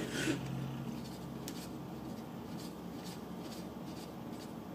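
Faint irregular clicks and rubbing as a small HM-01 model hit-and-miss engine is turned over slowly by hand during an ignition timing test.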